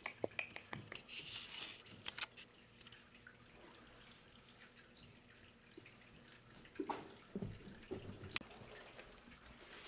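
Faint scattered light taps and clicks, then a few soft thumps and scuffles about seven to eight and a half seconds in: Maine Coon kittens playing.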